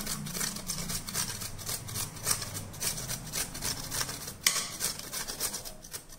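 Boiled beetroot rubbed against a flat stainless-steel grater in quick, even rasping strokes. There is one sharper knock about four and a half seconds in.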